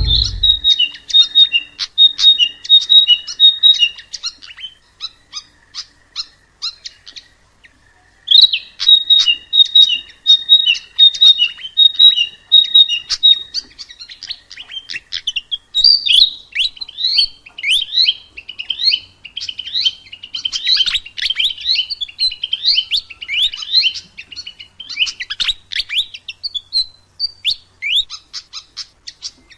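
Sikatan emas, a Ficedula flycatcher, singing. It repeats a phrase of clear high notes alternating between two pitches, falls silent for a few seconds, and then repeats the same phrase. About halfway through it breaks into a faster, more varied run of chirping notes.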